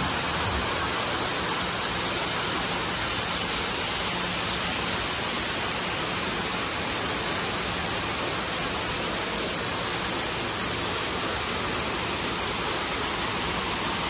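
A steady, even rushing noise that does not change.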